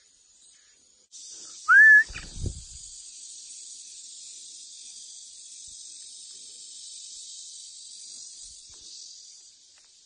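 Steady, high-pitched insect drone that starts suddenly about a second in and stops near the end. About two seconds in, one loud short whistle rises and levels off, followed by a brief low thump.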